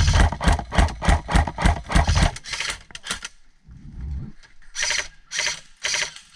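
Airsoft gun firing a rapid string of shots, about five a second, for over two seconds, then after a pause three more shots about half a second apart.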